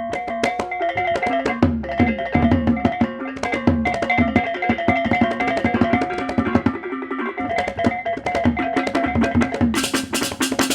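Baleganjur, the Balinese gamelan marching ensemble, playing a backing track: steady ringing gong and metallophone tones under dense, rapid drum and clashing-cymbal strokes. The cymbal strokes grow louder near the end.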